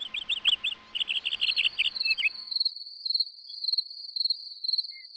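A high insect trill, cricket-like, runs steadily and then pulses in short bursts. For the first two seconds or so it sits under quick, bird-like chirps and a soft hiss.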